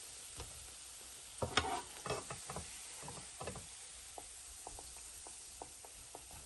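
Ripe plantain slices frying in shallow oil with a faint steady sizzle, while a metal slotted spoon knocks and clinks against the frying pan as the fried slices are lifted out. The loudest knocks come about a second and a half in, followed by a run of lighter ticks.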